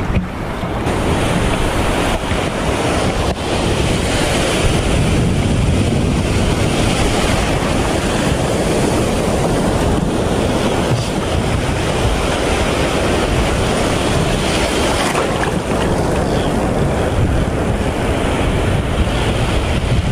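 Steady rush of surf washing over a shallow reef flat, with wind buffeting the microphone.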